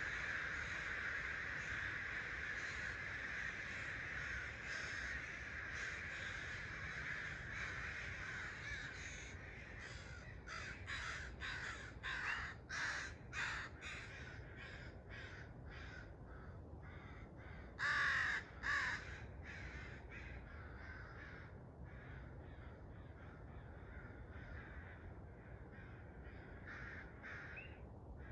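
Birds calling at daybreak: a dense, steady chorus at first, then a run of short, separate calls from about ten seconds in. The loudest calls cluster around twelve to fourteen seconds in, with a strong pair at about eighteen seconds, and the calls grow fainter toward the end.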